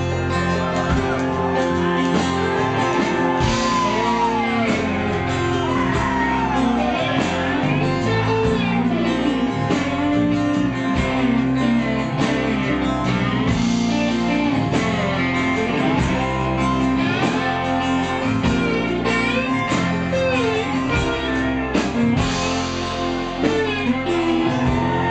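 Live rock band playing an instrumental break, with a lead guitar line of bending notes over the rhythm of the band.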